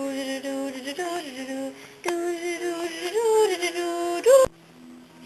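A voice singing a wordless tune in long held notes, sliding between pitches. It ends on a rising slide and cuts off suddenly about four and a half seconds in.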